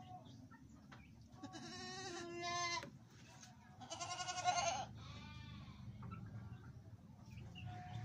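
Goats bleating: a long bleat about a second and a half in, then a second, louder, quavering bleat about four seconds in.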